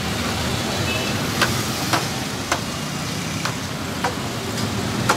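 Wooden stirring stick knocking against the rim and sides of a large aluminium pot of thick haleem, sharp knocks about twice a second, over steady street noise.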